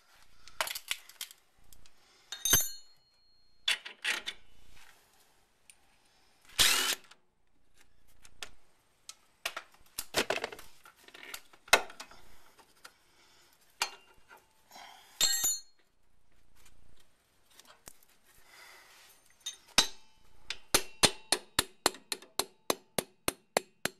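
Hand tools on the rear strut's lower mounting bolt: scattered metal clinks, knocks and scrapes. Near the end comes a steady run of ratchet clicks, about four a second, as a hand ratchet spins the loosened nut off.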